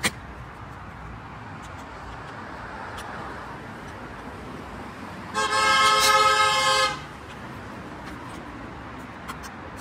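A car horn sounds one steady blast about a second and a half long, starting about five seconds in, over street background. A sharp click comes right at the start.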